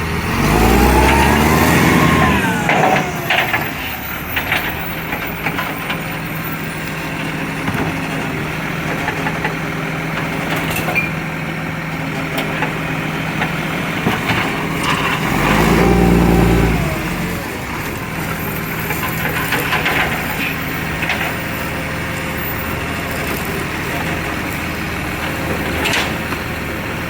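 Recycling garbage truck's diesel engine running with an exhaust leak. It revs up and back down twice, near the start and about halfway through, with scattered knocks and clanks.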